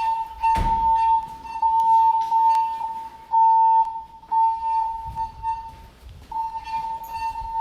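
Building fire alarm sounding its evacuation alert tone, a steady high tone that breaks off briefly a few times, between voice evacuation messages during an alarm test. A low thump about half a second in, with a few faint clicks.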